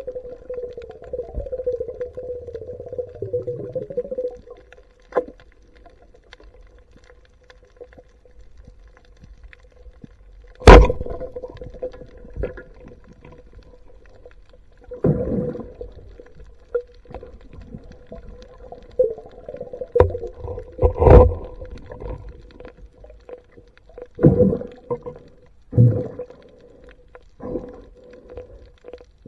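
Underwater, a rubber-band speargun fires with one loud, sharp crack about ten seconds in. Several dull thumps and knocks follow from the spear and the speared fish, over a faint steady hum.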